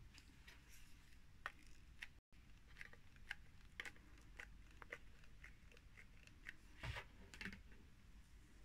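Quiet handling sounds: faint, scattered clicks and taps as a tomato paste tin and denim are handled while being hot-glued, with a slightly louder cluster of clicks about seven seconds in.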